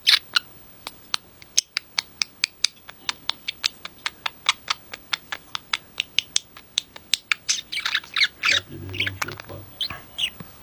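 Budgerigar making a long run of short, sharp clicks, about five a second, then breaking into a burst of warbling chatter near the end.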